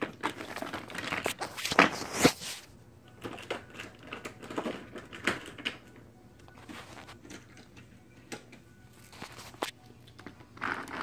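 Rustling, scraping and clicking from a phone being handled and moved about close to its microphone. The noise is loudest in the first couple of seconds, then thins to fainter scattered clicks.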